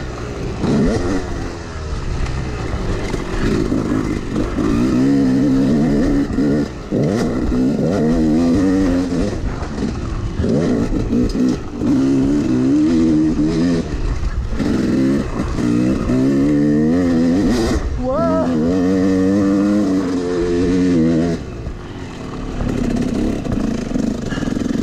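Yamaha YZ250X two-stroke dirt bike engine being ridden hard, its pitch climbing under throttle and dropping off again every second or two through shifts and corners. Near the end the engine backs off to a lower, quieter note as the bike slows.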